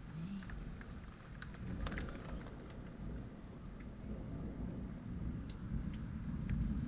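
Heavy rain falling with scattered drips and ticks, under a long, low rumble of thunder that slowly swells and is loudest near the end.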